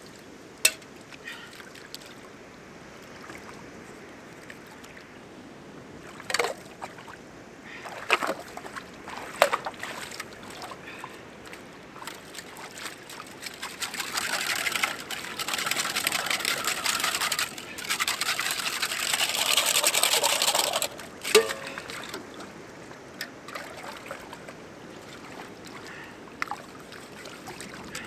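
Water poured from a small pot into a shallow rock pool, in two pours of a few seconds each around the middle, as the pot is dipped and rinsed. A few short splashes or knocks come before, and a sharp splash ends the pouring.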